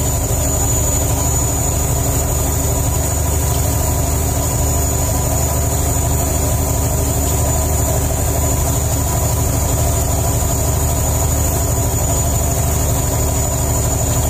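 Fishing boat's engine running steadily: a loud, even drone with steady low tones that does not change.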